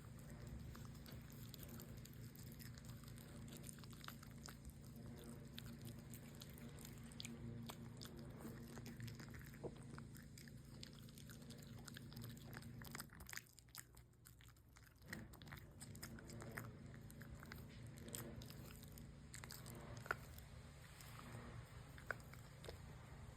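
A shiba inu chewing food, with faint crunches and clicks throughout, over a steady low hum that cuts out for a moment about halfway through.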